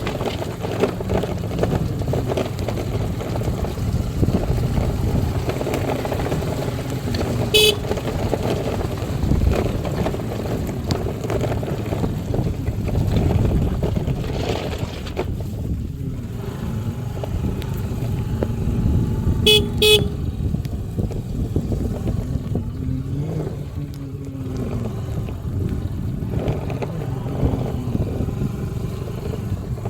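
A road vehicle running steadily, with a short horn toot about seven and a half seconds in and two quick toots near twenty seconds.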